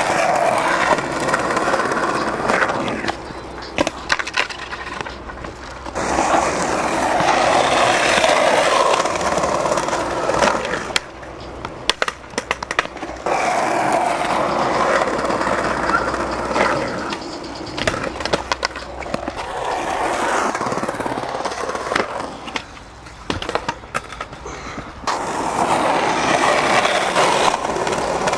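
Skateboard wheels rolling over concrete in several long runs, with sharp clacks of the board hitting the ground between them.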